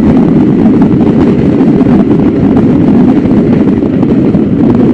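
Steady, loud wind rush on the microphone of a motorcycle travelling at speed, with the engine running underneath.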